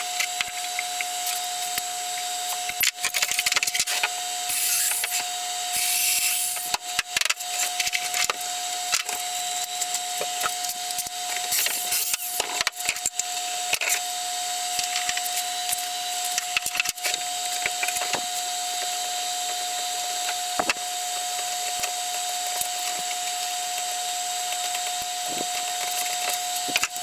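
Hand tools and metal parts clicking, knocking and scraping as a small benchtop band saw is taken apart, in irregular bursts of handling noise over a steady faint whine.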